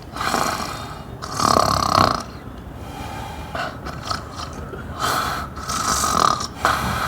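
A person snoring, several loud snores in a row about a second apart.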